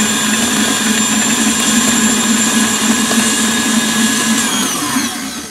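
KitchenAid Artisan stand mixer running at speed, whipping butter and sugar in its steel bowl with a steady motor whine. Near the end the motor is turned off and winds down, its whine falling in pitch and fading.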